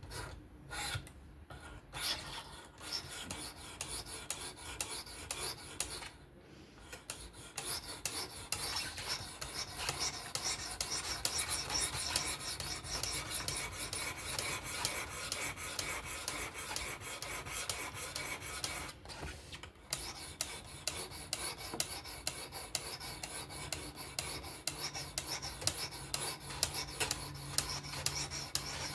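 Sharpening stone on a fixed-angle guided sharpener scraping along a knife's edge in rapid back-and-forth strokes. These are edge-trailing passes to refine the bevel. The scraping is continuous, with two short pauses about six and nineteen seconds in.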